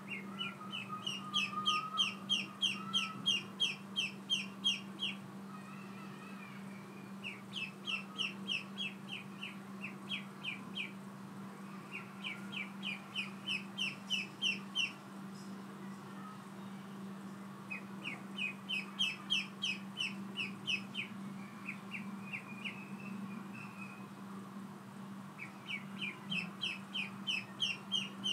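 Ducklings peeping: quick runs of high, sharp peeps at about five a second. Each run lasts a few seconds, with five such runs separated by short pauses.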